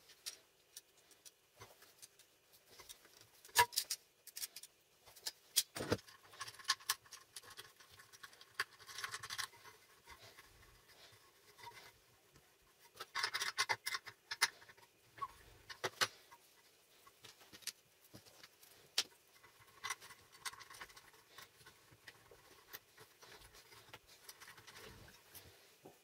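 Hands handling wires and small metal parts: scattered sharp clicks and taps, with short bouts of rustling and scraping, as ring terminals and wires are fitted to an aluminium panel. A few louder knocks stand out, about three and a half, six and sixteen seconds in.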